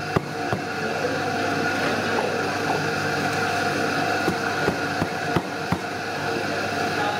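Steady mechanical hum made of several fixed tones, with irregular sharp knocks or clatters over it every half second to a second or so.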